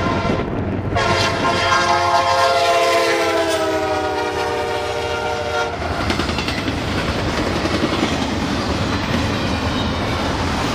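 A CSX diesel freight locomotive sounds its air horn, a chord of several notes, starting about a second in and lasting about five seconds. The pitch drops slightly as the locomotive passes. After that the freight cars of the intermodal train roll by with steady wheel rumble and clickety-clack.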